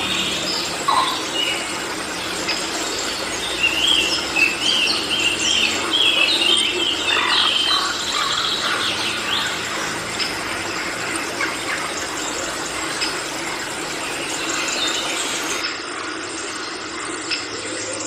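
Tropical forest ambience: a dense, steady background hiss of the forest, with a bird giving a rapid run of high, bending call notes a few seconds in and scattered calls after. The background changes abruptly near the end.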